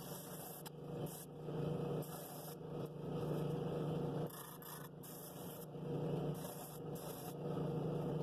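Drill press spinning a sanding drum against the inside of a cherry wood bowl: a steady motor hum with the rasp of sanding swelling and fading every second or two as the bowl is pressed on and eased off.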